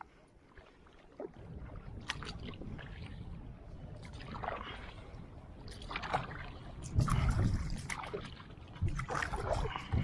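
Kayak paddle strokes splashing in the water every second or two, over a steady low rumble that swells loudest around the middle and near the end.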